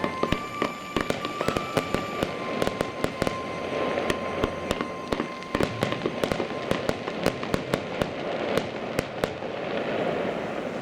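Fireworks going off in a rapid, irregular barrage of sharp bangs and crackles, several a second, with a thin steady whistling tone running underneath.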